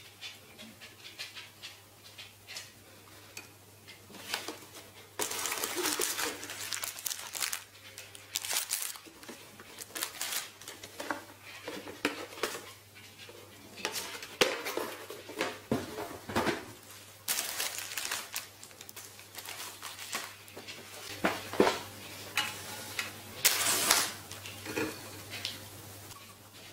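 Unboxing a Hario V60 pour-over kit: plastic wrapping crinkling and cardboard packaging rustling in several bursts, with light knocks and taps as the glass server and other pieces are handled and set down on a wicker table.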